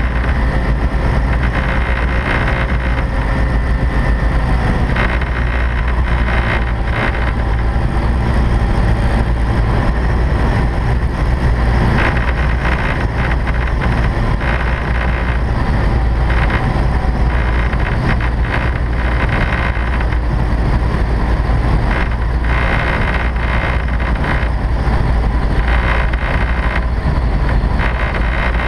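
Light aircraft's piston engine and propeller droning steadily, heard from inside the cockpit.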